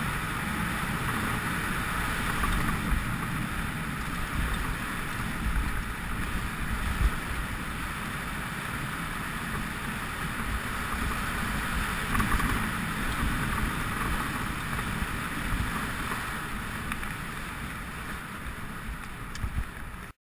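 Mountain bike rolling fast over a dirt trail: a steady rumble of tyres and frame rattle under wind noise on the microphone, with a few sharper knocks from bumps. The sound cuts off suddenly at the end.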